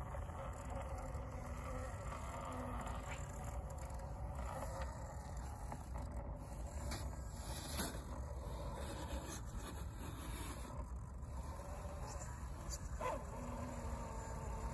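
Axial SCX10 II 1:10 scale RC crawler driving slowly over sandy ground: a faint steady electric motor whine in the first few seconds and again near the end, and a couple of sharp clicks, over a steady low background rumble.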